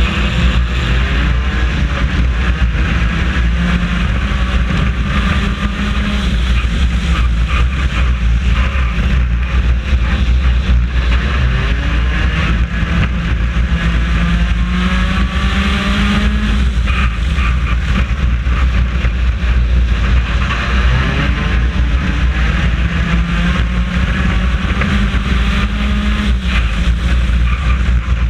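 Four-cylinder race car engine running hard under racing load, heard from inside the car; its pitch rises and falls repeatedly as the throttle is worked.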